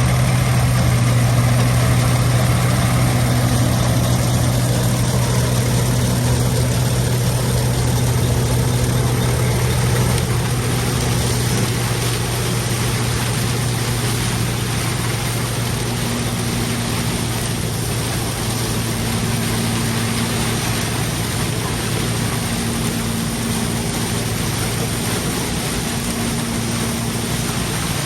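John Deere 95 combine running steadily, a constant low engine drone with mechanical noise over it; the level eases slightly a little under halfway through.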